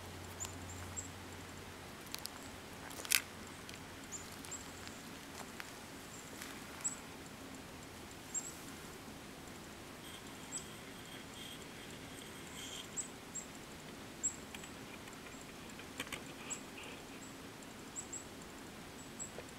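Faint outdoor ambience: short high-pitched chirps scattered every second or so, a few sharp clicks, the loudest about three seconds in, and a soft steady background hiss.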